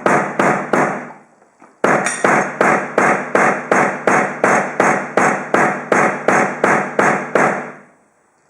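A hammer repeatedly striking an HDMI cable in the same spot, about three to four ringing blows a second, pausing briefly about a second in and stopping shortly before the end. This is a crush test of the cable.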